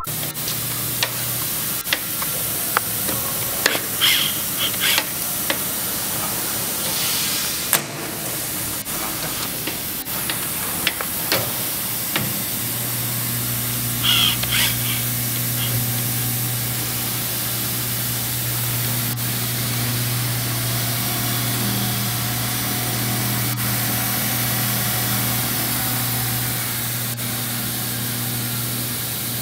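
Timesaver belt grinder running: a steady hiss from the abrasive belt, with a few scattered clicks. About twelve seconds in, a steady low hum from its 7½ hp motor joins the hiss and holds.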